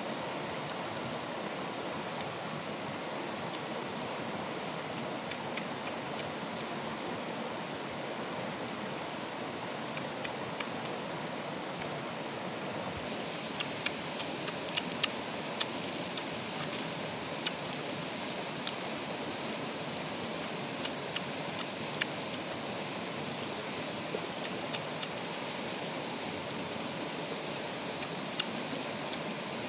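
Steady rushing of a small rocky stream flowing over stones, with faint scattered clicks in the second half.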